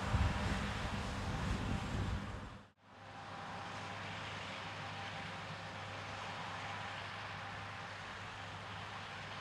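John Deere S790i combine harvester running while threshing wheat, a steady engine and machinery drone. Just under three seconds in it fades out to a moment of silence, then the steady drone resumes a little quieter.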